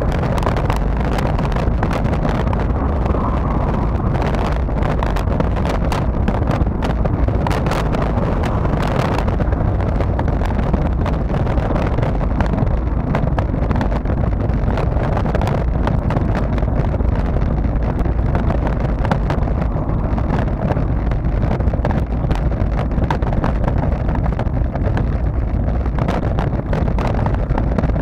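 Steady wind buffeting the microphone of a camera on a moving bicycle, a continuous deep rumble, with scattered clicks over the first nine seconds or so.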